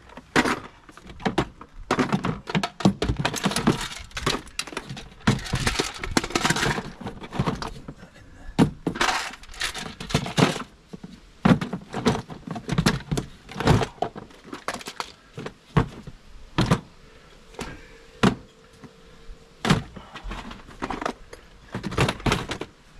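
Metal hand tools such as hammers, screwdrivers, levers and chisels clanking and clattering as they are handled and shifted about in a storage compartment, with irregular knocks and thunks.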